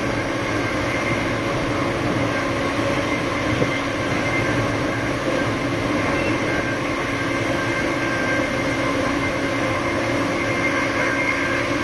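Siemens Charger SC-44 diesel-electric locomotive standing with its Cummins QSK95 V16 diesel running steadily: a constant drone with several held tones and no revving.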